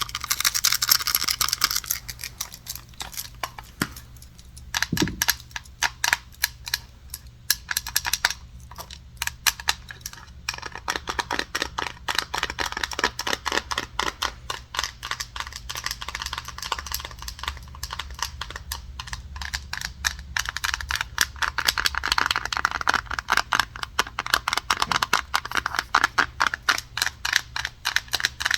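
Fast, close-up tapping and scratching on wooden and other objects: many quick taps a second, mixed with a scratchy rasp for long stretches.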